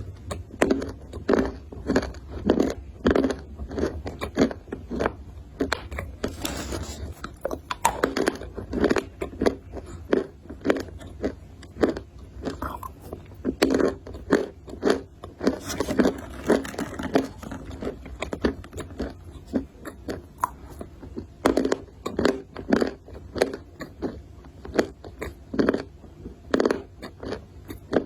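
Close-miked biting and chewing of something brittle, with sharp crunches about once or twice a second and a few longer grinding crunches in between.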